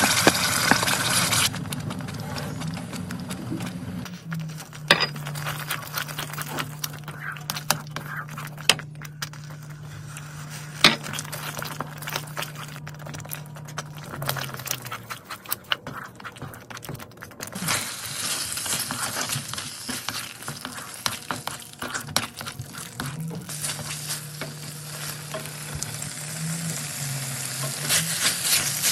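A spatula stirring and scraping chili paste frying in a nonstick pan, with a steady sizzle and many small clicks and scrapes against the pan. The sizzle grows louder again about two-thirds of the way in, with shrimp and petai beans being tossed in the paste by the end. A faint low hum runs underneath.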